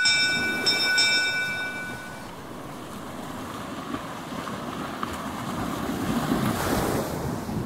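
A bell rings, struck twice more in quick succession near the start, its ring dying away about two seconds in. Then comes the wash of waves and wind, with a surge of surf near the end.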